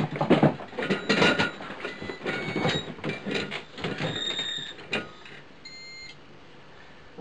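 Fast, irregular clacking of keys on a computer keyboard, followed by two short high electronic beeps past the middle.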